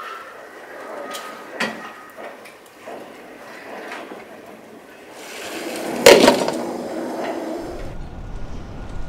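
A metal spoon stirring in an enamel pot, with a few light clinks in the first three seconds. Then a louder rising swell of noise ends in a sharp clatter about six seconds in.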